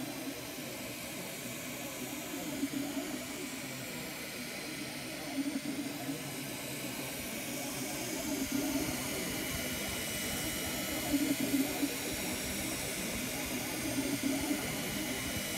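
Ultimaker 2 3D printer printing: a steady whir of its fans, with a low motor hum that swells about every three seconds as the print head traces the first layer.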